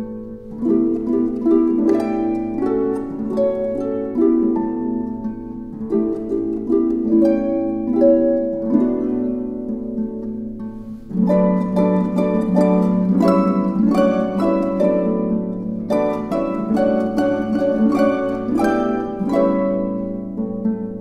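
Solo harp playing a tango: a steady stream of plucked notes and chords, growing louder about eleven seconds in.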